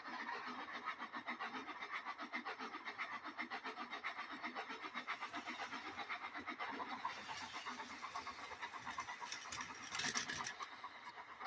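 Steam locomotive chuffing at a quick, steady pace, about five chuffs a second. A louder rush of noise comes about ten seconds in.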